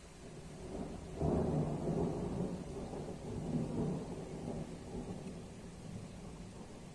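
Thunder rumbling: a low rumble swells, breaks into a louder peal about a second in, then rolls on and slowly fades.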